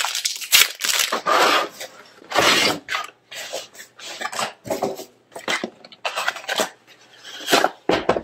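Plastic air-column cushioning and a plastic bag crinkling and rustling as they are handled and pulled away, in irregular bursts.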